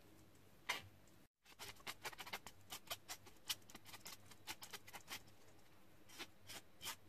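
Metal spoon scraping and tapping against a fine wire-mesh sieve as mashed purple potato is pressed through it: many faint, irregular clicks and scrapes.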